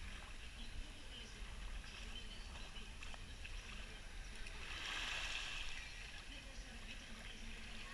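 Quiet lagoon beach ambience: a low steady rumble with a soft wash of shallow water that swells and fades about five seconds in.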